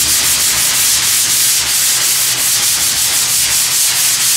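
Hand sanding block rubbed in quick, regular back-and-forth strokes over a bare metal fender panel, a steady loud rasping hiss. The block is run over a guide coat to show the highs and lows left after shrinking the dent.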